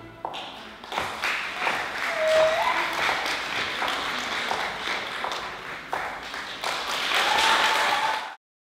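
Audience applauding at the end of a stage dance performance, with a few voices calling out; it cuts off suddenly near the end.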